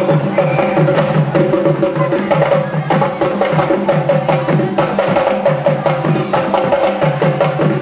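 Percussion-led music for an African dance, with drums playing a fast, steady, repeating rhythm.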